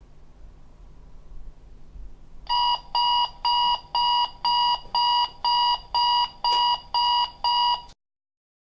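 Bush digital alarm clock going off: a run of short, high electronic beeps, about two a second. The beeps start a couple of seconds in and stop abruptly near the end.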